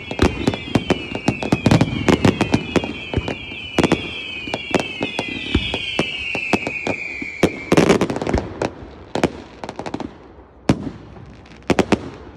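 Fireworks going off in a rapid volley of bangs and crackles, with many overlapping whistles each falling in pitch. A dense cluster of bangs comes about eight seconds in, then the bangs thin out to a few scattered reports near the end.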